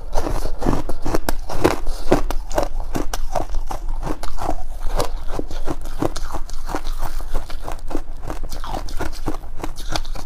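Close-miked biting and chewing of compacted freezer frost ice: a dense run of crisp, crackly crunches, several a second.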